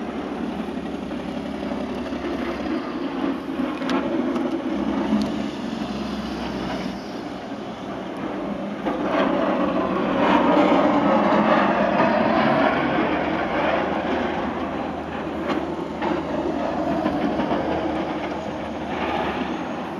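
Snow plow trucks and cars passing on a snow-covered highway: a steady noise of engines and tyres that swells and fades, loudest about ten seconds in and again near the end.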